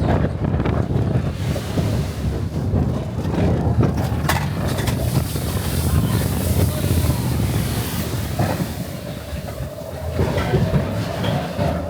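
Matterhorn Bobsleds roller coaster sled running along its steel track: a steady rumble with rattling clatter.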